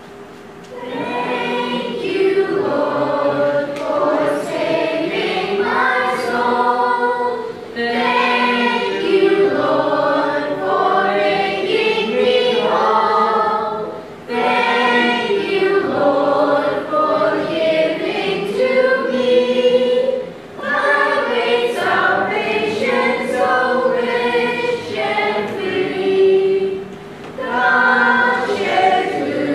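Children's choir singing together, starting about a second in, in phrases with short breaks every six or seven seconds.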